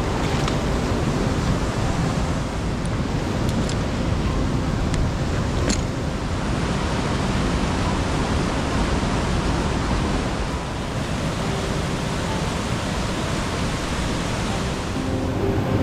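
Steady rushing of flowing creek water, with a couple of brief sharp clicks a few seconds in.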